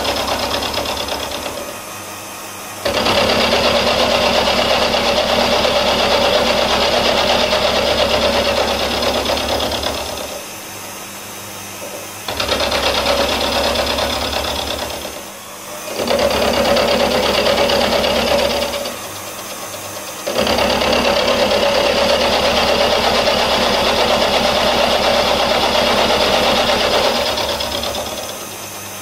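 End mill on a vertical milling machine cutting the face of a cast engine plate flat. The cutting noise comes in four long stretches, broken by short quieter pauses where the cut eases off between passes.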